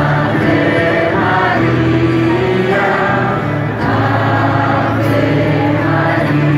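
A choir singing a Christian hymn with music, in long held notes.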